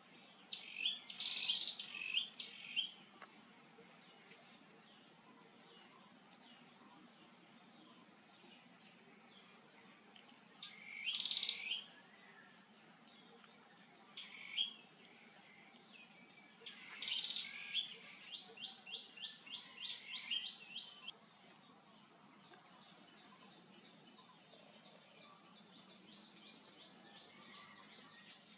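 High-pitched animal calls in a few separate bursts, falling in pitch, the last trailing into a quick run of about a dozen short clipped notes, about four a second.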